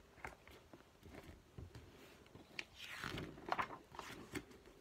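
A paperback picture book being opened and its pages turned: faint paper rustling and small clicks, with a louder flurry of rustles a little past halfway.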